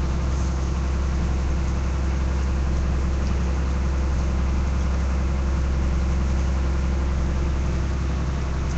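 A small passenger ferry's engine running steadily while underway, heard from inside the cabin as an even low drone with a hiss of water and hull noise above it.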